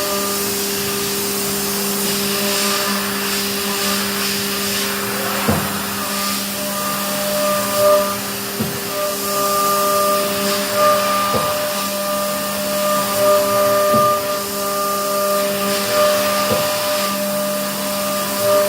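Haas VF-2SS CNC vertical milling machine cutting aluminium: a steady machining whine of several held tones over a hiss, with the tones dropping out and coming back as the cut changes, and brief sharp sweeps every few seconds.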